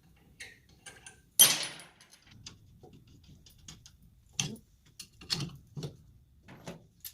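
Metal clinks and clanks of wheel-stud hardware and hand tools being handled: one sharp clank about a second and a half in, then a few lighter knocks in the second half.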